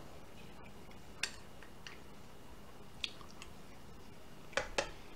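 Metal spoon clinking and scraping against a small ceramic bowl while scooping fried rice: a few sharp, scattered clicks, the loudest two close together near the end.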